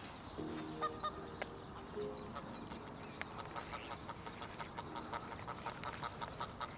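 Geese honking a few short calls in the first two seconds, with small birds chirping faintly throughout.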